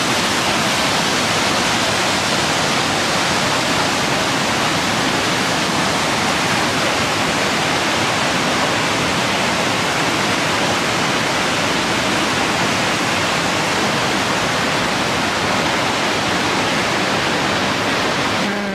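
Mountain creek whitewater cascading through a rocky gorge: a loud, steady rush of falling and churning water.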